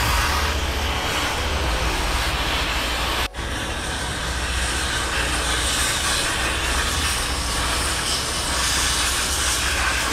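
Cutting torch running with a steady hiss and rush as it burns through rusted, seized shock absorber bolts on a semi truck's rear axle. The sound drops out for a split second about three seconds in.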